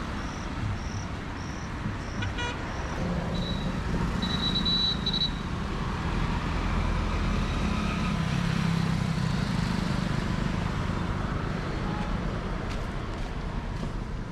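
Road traffic with vehicle engines running, a rapid series of short high beeps in the first few seconds, and a vehicle horn tooting about four to five seconds in.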